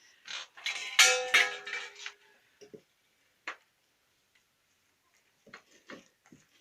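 Dishes clattering: a few sharp clanks about a second in, with a brief metallic ring, then scattered light clicks and knocks as they are set down and handled.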